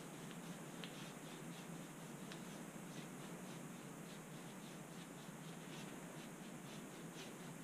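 Paintbrush stroking acrylic paint onto a canvas: faint, repeated short brushing strokes, irregularly spaced.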